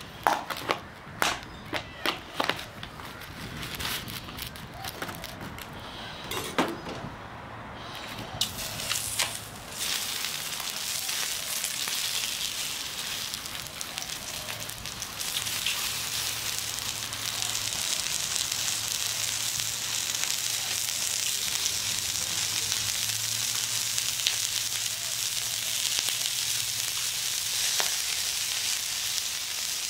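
Sausages sizzling on an oiled stainless-steel barbecue hotplate. A run of sharp clicks and knocks comes in the first several seconds, then a steady sizzle sets in about ten seconds in and grows louder as more sausages go onto the plate.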